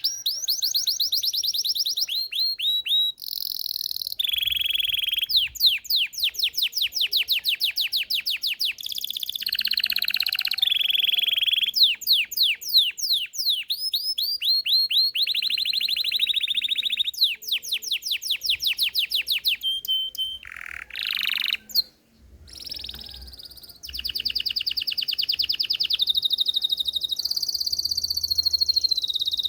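Belgian canary singing a long continuous song: fast runs of quick down-sweeping notes alternating with held trilled phrases, with a short pause about three-quarters of the way through.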